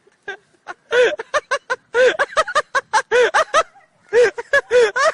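A person laughing hard in high-pitched bursts of rapid 'ha-ha' syllables, in two long bouts with a short breath between them.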